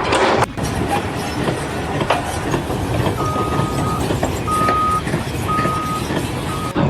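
Reversing alarm of a construction vehicle beeping in a steady high tone about once a second, starting about three seconds in, over the noise of heavy machinery running. A short loud noisy burst comes at the very start.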